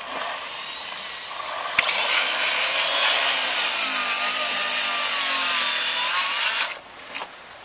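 Cordless electric hand planer running and shaving a wooden plank, a dense hissing cut. A sharp click about two seconds in is followed by a louder cut that stops suddenly near the end.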